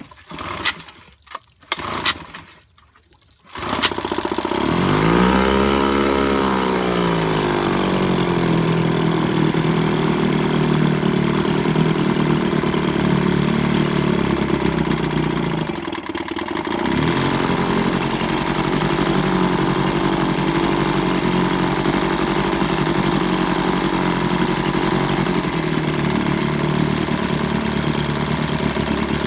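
1950s Gale Buccaneer 5 hp two-stroke outboard motor on freshly adjusted needle settings: after a few short knocks it catches about four seconds in, revs up and back down, then settles into steady running, with a brief sag in speed about halfway through.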